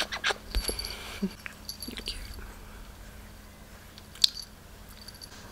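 Cavalier King Charles spaniel puppy playing and being petted right at the microphone: small clicks and rustles of fur and hands, busiest in the first two seconds, then quieter, with one sharp click about four seconds in.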